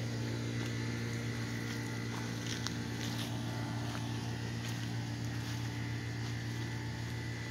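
A steady low machine hum with a few faint ticks.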